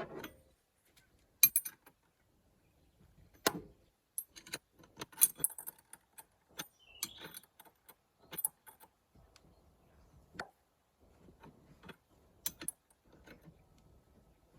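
Irregular metallic clinks and clicks of hand tools and a small puller being handled while it is set up to pull a wiper arm off its spindle. The sharpest clinks come about one and a half seconds in and again about three and a half seconds in.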